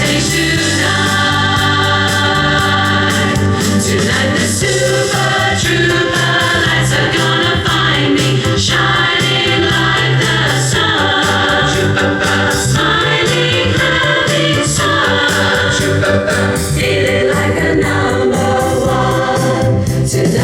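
Background music with choir-like singing over a steady bass.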